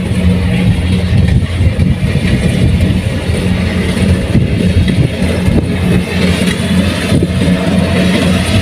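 Kubota rice combine harvester's diesel engine and threshing machinery running steadily under load.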